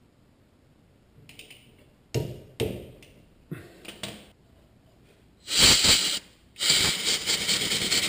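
Metal hand tools clinking a few times as they are set down and picked up, then two longer, louder spells of rattling and handling noise.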